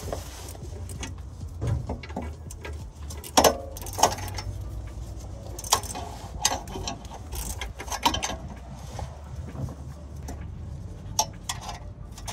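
Irregular metallic clicks and knocks of a bolt being worked by hand at the new front exhaust pipe of a Vauxhall Zafira, trying to catch its thread, with two sharper knocks about three and a half and four seconds in. A low steady hum runs underneath.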